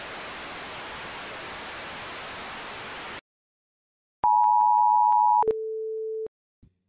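Television static hiss for about three seconds that cuts off suddenly to silence. Then a loud, steady, high test tone like a colour-bar reference tone, with faint regular ticks, drops to a lower, quieter steady tone for under a second.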